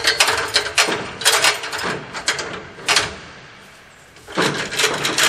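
24-foot Werner fiberglass extension ladder being extended, its fly section sliding up while the rung locks clack over the rungs. There is a dense run of clatter through the first three seconds and another burst near the end.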